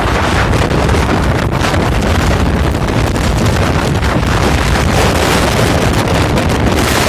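Loud, steady storm wind of about 27 m/s in a blizzard, buffeting the microphone.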